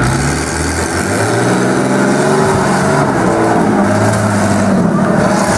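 Monster truck's big-block V8 revving up and down as the truck climbs onto a car.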